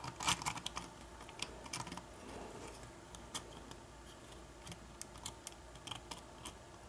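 A thin steel lock pick and tension wrench working in a Kwikset-keyway pin-tumbler lock during single pin picking: faint, irregular small metal clicks and ticks, several close together in the first second, then scattered.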